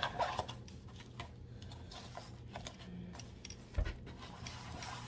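Hands pressing and smoothing a rolled diamond painting canvas and its plastic cover film flat on a table: faint crinkling and crackling of the film, busiest at the start, with one soft thump almost four seconds in.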